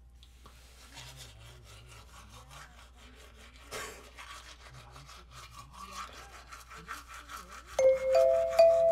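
Manual toothbrush scrubbing teeth in quick back-and-forth strokes, with one louder scrape partway through. About a second before the end, louder chiming mallet-percussion music starts.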